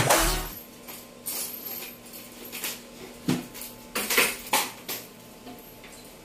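Cutlery clinking and knocking against plates during a meal: a scatter of short, light clinks at irregular intervals.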